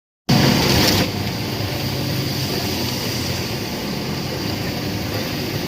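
Concrete mixer machine running with a steady mechanical noise, louder for about the first second.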